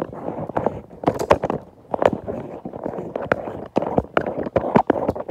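Close handling noise: rubbing and rustling with many sharp knocks and clicks, from the hand-held phone and the knit sleeve against it.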